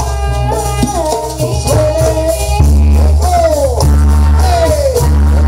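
Live Jaranan ensemble music: drums and percussion under a melody that slides down in pitch several times, with a heavy low bass coming in about two and a half seconds in.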